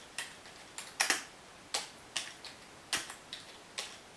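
Dell laptop keyboard keys pressed one at a time: about ten separate clicks, spaced unevenly, roughly one every half second, as a line of code is typed slowly.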